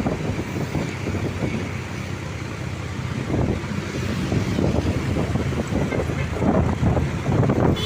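A bus moving along the road: steady engine and road rumble.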